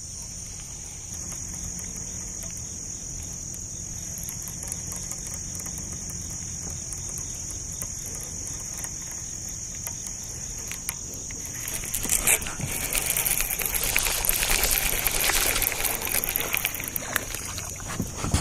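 Steady high-pitched drone of an insect chorus. About two-thirds of the way in, a louder rustling, clicking noise joins it.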